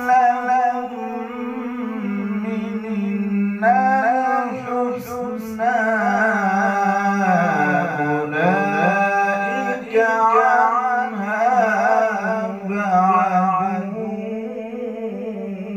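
A male qari reciting the Quran solo and unaccompanied, in a melodic style. He draws out long ornamented phrases over a held low note, and the pitch sinks and rises again about eight seconds in.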